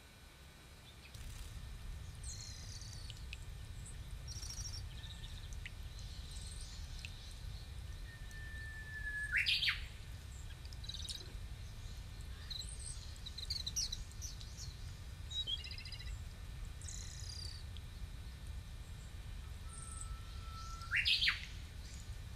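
Small birds chirping and tweeting with many short, high calls. Twice, about nine seconds in and again near the end, a louder call holds one note and then sweeps sharply upward. A low steady rumble runs underneath.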